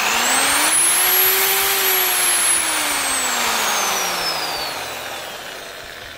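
Chicago Electric low-speed D-handle drill/mixer's 6-amp motor running free with an empty chuck, loud, with a whine that climbs in pitch over the first second or so and then slowly falls and fades as it winds down.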